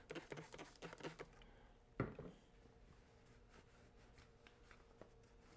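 Quick clicks and short hisses of a trigger spray bottle spraying vinyl protectant onto plastic grommet strips, then a single thump about two seconds in as the bottle is set down, followed by faint rubbing of a cloth.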